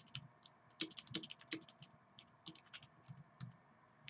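Faint typing on a computer keyboard: irregular key clicks in quick runs, with short pauses between them.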